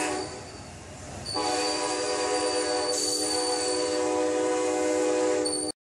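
Amtrak passenger train's air horn: a brief note right at the start, then one long steady chord from about a second and a half in, over the noise of the cars rolling past. It cuts off suddenly near the end.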